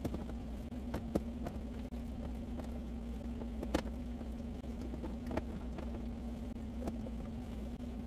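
Bottles and jars being set into refrigerator door shelves: scattered light knocks and clinks at irregular moments, over a steady low hum.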